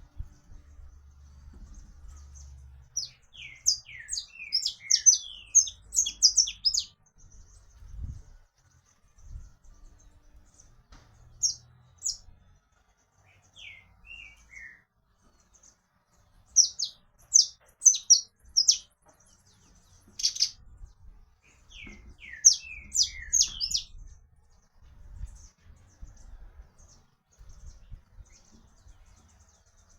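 Saffron finch (canário-da-terra) singing: phrases of quick high chirps and short down-slurred notes, coming in bursts a few seconds apart, with the busiest phrases a few seconds in and again past the middle.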